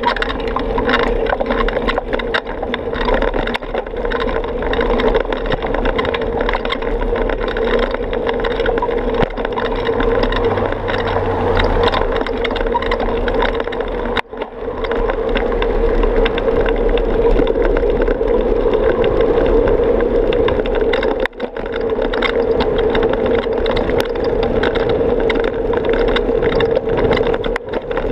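Riding noise from a moving bicycle: a steady rushing sound with many small rattles and knocks, briefly dropping twice.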